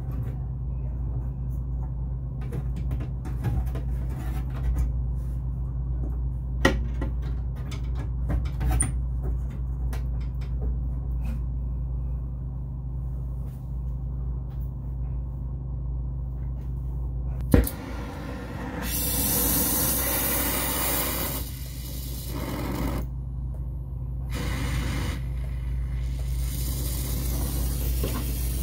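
A steady low hum with a few sharp clicks and handling knocks, then, about two-thirds of the way in, a brazing torch hissing as its gas is opened, stopping and starting several times before it stays on.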